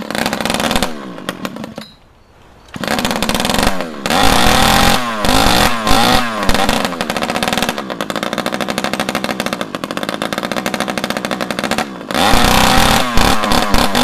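Small two-stroke engine running through a straight copper exhaust pipe of about 3/4 inch, unmuffled and very loud. It sags almost to nothing about two seconds in, then picks up again. It revs up and down, settles into an uneven low-speed run, and revs again near the end.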